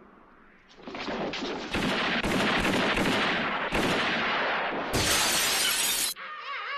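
A rapid volley of gunshots, about eight to ten, echoing and starting about a second in. This is followed by a glass window smashing for about a second. Music starts just before the end.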